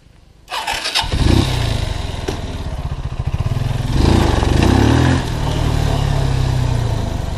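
Small motorcycle engine running under way, coming in suddenly about half a second in; its revs rise and fall around the middle as the throttle is worked.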